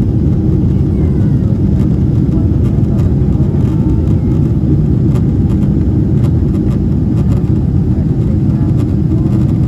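Steady low roar inside the cabin of a Boeing 777-300ER climbing on its GE90 engines, engine and airflow noise blended into one even rumble.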